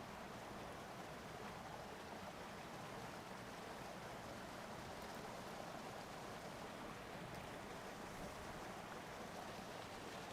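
Steady, even rush of flowing water, holding constant without any distinct splashes or knocks.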